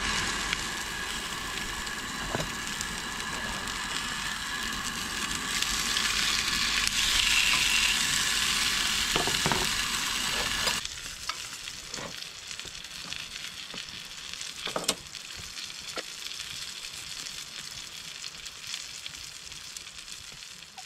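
Sausages sizzling in a frying pan on a two-burner camp stove, a steady dense hiss. About eleven seconds in it cuts off suddenly, leaving a quieter background with a few light clicks.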